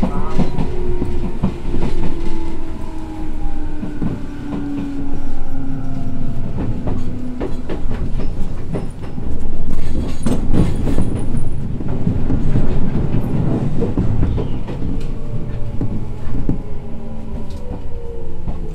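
Enshu Railway 1000 series electric train running, its traction motors whining in several tones that fall in pitch as the train slows, over wheel rumble and clacks at the rail joints.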